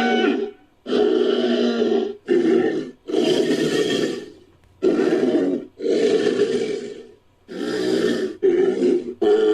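Designed styracosaurus vocal sound effects, made from mixed animal recordings. About eight separate growls and roars follow one another quickly, each under two seconds long, with short gaps between them.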